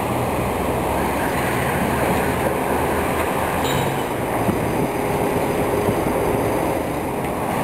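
Steady din of heavy construction machinery running: a low engine rumble with a faint steady whine over it.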